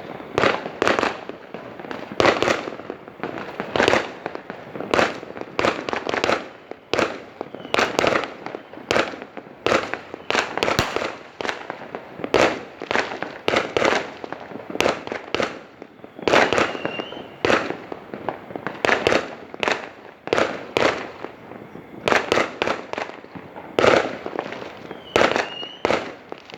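Fireworks exploding in a continuous barrage: sharp bangs, several a second, coming in clusters, with a few brief whistling tones among them.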